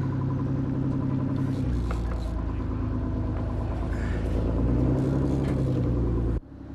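Boat engine running with a steady low drone that swells a little about two-thirds of the way in, then cuts off suddenly shortly before the end.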